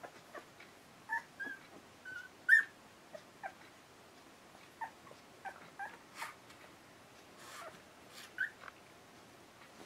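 Twelve-day-old Akita puppies squeaking and whimpering in short, scattered high cries, the loudest about two and a half seconds in.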